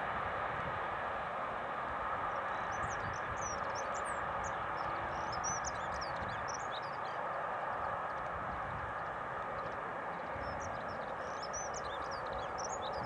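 Small birds chirping in short bursts, in two clusters, over a steady, even rushing background noise.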